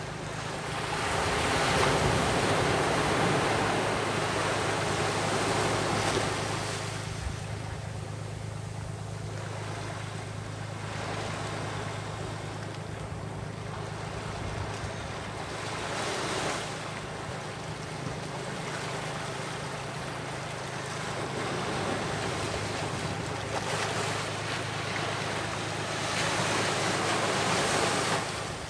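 Small sea waves breaking and washing up a sandy beach and against shore rocks, the surf swelling louder every several seconds, most strongly near the start and again near the end, over a steady low hum.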